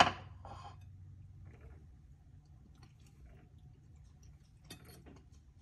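A fork clinks sharply once against a ceramic plate at the start, followed by faint chewing and small handling noises.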